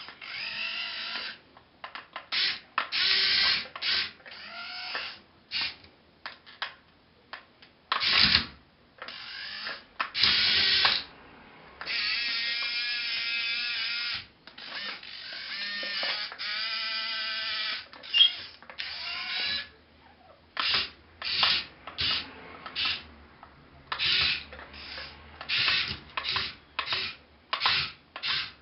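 Small electric gear motors of a Kyosho 1/32-scale Komatsu PC1250-8 radio-controlled excavator whining in stop-start bursts as it drives its tracks and works its boom, with a few longer runs of about two seconds in the middle.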